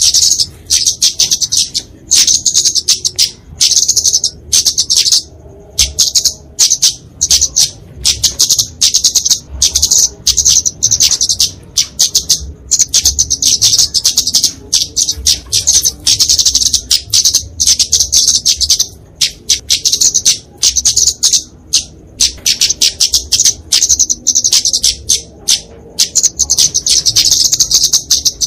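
Kemade flowerpecker giving its aggressive 'fighting' call: runs of very rapid, high-pitched ticking chips, broken by short pauses.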